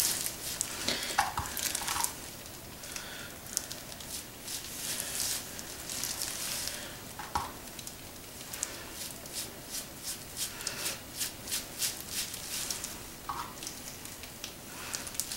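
Dye-soaked hair being worked and brushed through close to the microphone: soft, irregular wet squishing and rustling, with a few brief squeaks.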